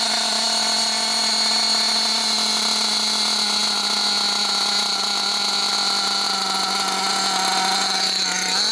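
Alpha Plus two-stroke nitro glow engine in an RC buggy idling steadily with a high buzz, while its top-end needle is leaned during break-in. Near the end the pitch steps up a little.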